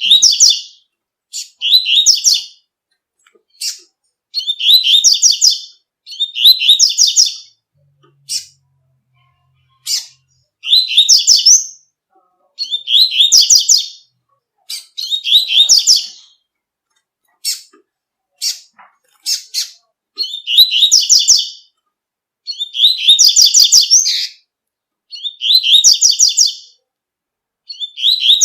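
Double-collared seedeater (coleiro) singing the 'tui tui' song: high, fast phrases about a second long, repeated every two seconds or so, with single sharp notes between them.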